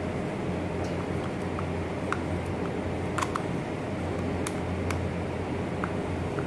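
A screwdriver working the screws of a three-phase electric motor's terminal box: small, irregular clicks and ticks, over a steady low background hum.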